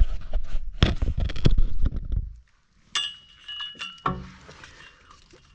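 Handling noise as a person shifts over an engine bay: rumbling and irregular knocks for the first couple of seconds, then almost quiet. About three seconds in comes a light metallic clink that rings briefly, and a second knock a second later.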